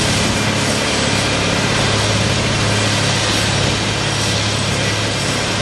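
Diamond wire saw rig running steadily: an engine drone from its power unit under a dense, even grinding hiss.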